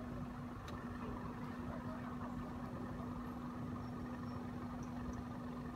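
An engine idling steadily, a low hum at one constant pitch.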